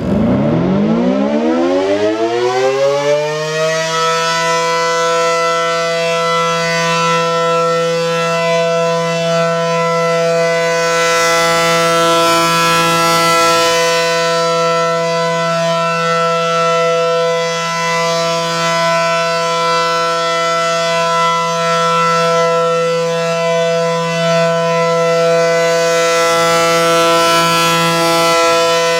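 American Signal Allertor 125 outdoor warning siren winding up from a standstill, its pitch rising over about four seconds, then holding one steady loud tone: the steady Alert signal.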